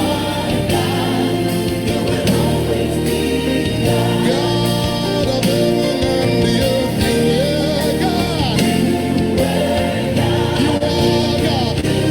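Gospel music: singing voices over an instrumental backing.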